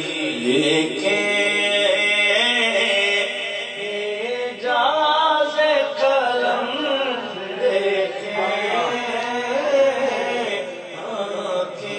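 A man singing a naat solo into a microphone, a devotional chant in long, wavering, melismatic lines.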